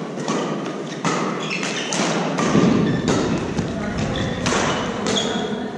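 Badminton doubles rally: racket strings hitting the shuttlecock about once a second, with players' footsteps thudding on the court.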